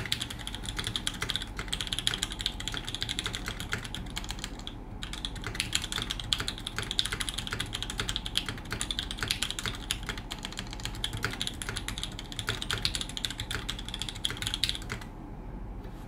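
Fast touch-typing on a TGR Jane V2 CE custom mechanical keyboard with lubed HHHH H1 linear switches, GMK Alter keycaps and a carbon fibre plate: a dense, even run of keystrokes at around 106 words a minute. It pauses briefly about five seconds in and stops about a second before the end.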